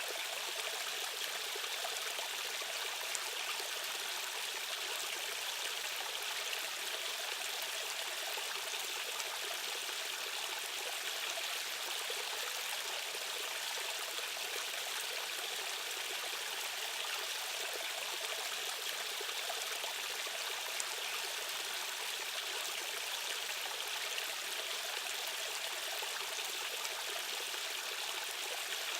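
Flowing stream water rushing and trickling steadily over rocks, with no change throughout.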